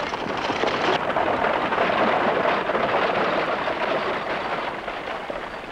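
Several horses' hooves on a dirt street, with a horse-drawn buggy's wheels, as riders set off together: a dense, crowded clatter that fades slowly toward the end.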